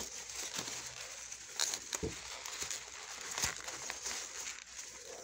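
Foam packing peanuts rustling and crunching as hands dig through them in a cardboard box, with a few sharper clicks.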